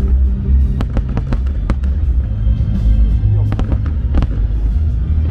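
Fireworks bursting overhead: a string of sharp bangs and crackles about a second in, and another cluster near four seconds in, over loud show music with a heavy bass.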